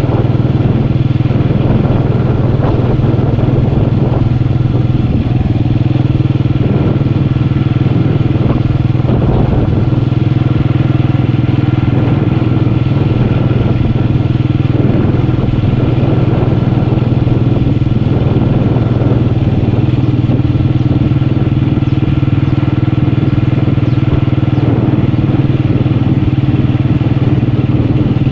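Motorcycle engine running steadily while riding, its pitch holding level with no revving up or down.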